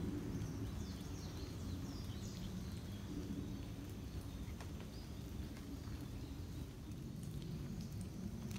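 Small birds chirping faintly in short high calls, mostly in the first few seconds, over a steady low rumble, with a few faint ticks.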